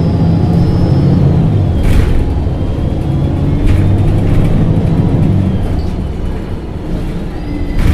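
LPG engine of a MAN NG 273 T4 articulated city bus running under way, its drone swelling and easing as it pulls. Sharp knocks come about two seconds in, again near four seconds, and once more at the very end.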